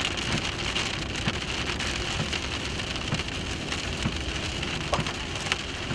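Steady rain falling on a vehicle, with many individual drops ticking, heard from inside the vehicle.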